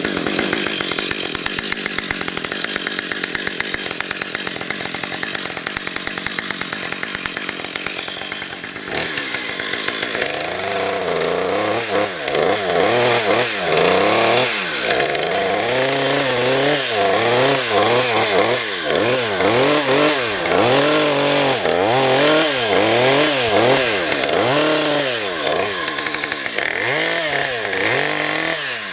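Chainsaw running steadily at high revs for about the first nine seconds. It then drops and is revved up and down over and over, roughly once a second.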